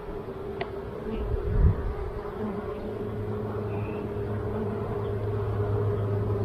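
Honeybees buzzing steadily around an opened hive, an even hum that strengthens from about halfway through. The beekeeper takes the lack of upset noise as a sign the queen is in the hive. A brief low thump comes about a second and a half in.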